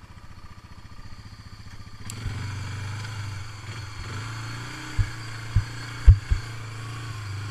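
Honda ATV's single-cylinder four-stroke engine running under throttle on a muddy trail, getting louder about two seconds in. Several sharp knocks from about five seconds in, as the machine jolts through the ruts.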